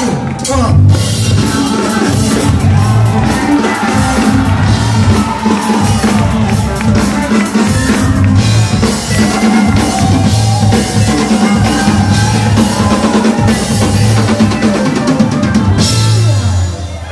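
A band playing rock-style music, with a driving drum kit and a heavy, repeating bass line. The music stops just before the end.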